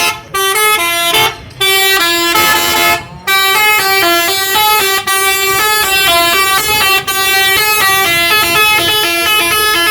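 Telolet horn on a Prabunata Jaya bus: a multi-tone air horn playing a quick tune of stepped notes, with two brief breaks in the first three seconds.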